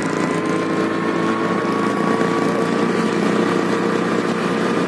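Motorcycle engine running steadily while riding along the road, its pitch climbing slowly.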